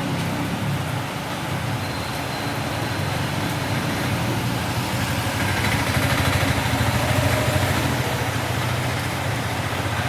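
Heavy rain falling in a steady, dense rush that swells a little about halfway through.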